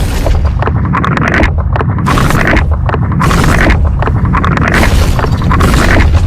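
Dragon breath-blast sound effect: a loud, continuous explosive blast with a heavy low rumble and crackling surges, kicking in suddenly.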